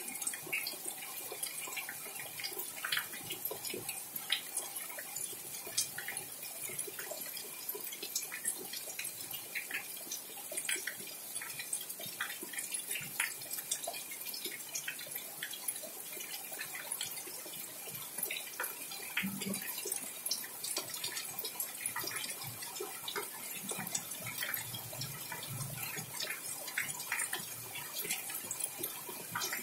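Steady rain falling, with many close drops and drips ticking on the potted plants and the wet balcony floor.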